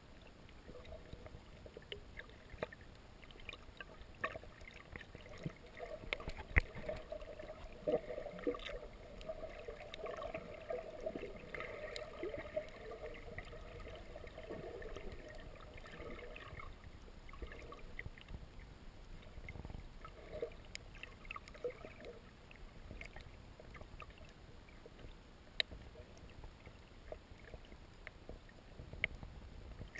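Underwater sound picked up by a diving camera: muffled water noise with a low steady drone through the first half and scattered sharp clicks throughout.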